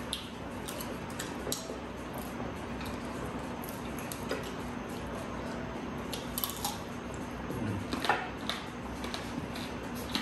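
Close-up eating sounds: chewing and crunching of crispy fried food, with scattered small clicks of plates and glasses, over a steady low hum.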